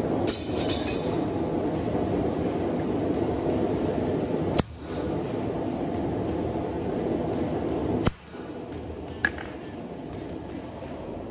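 Steel clinking on a steel anvil: a quick cluster of ringing clinks as tongs set a red-hot bar down, then single sharp clinks about four and a half, eight and nine seconds in. A steady rushing noise runs underneath and drops in level after the later clinks.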